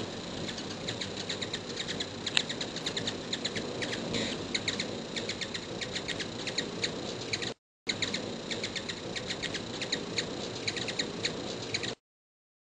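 Hummingbirds chipping and twittering up close: rapid runs of short, high chip notes over a steady background hiss. The sound drops out briefly a little past halfway and stops about a second before the end.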